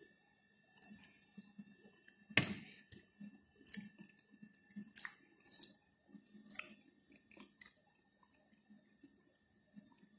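A person chewing a mouthful of chocolate cake close to the microphone, with irregular wet mouth clicks and smacks, the sharpest a couple of seconds in.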